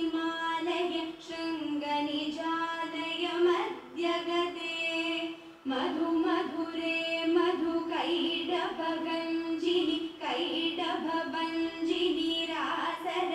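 A high female voice singing a devotional song, the melody held in long sustained notes with short breaks between phrases.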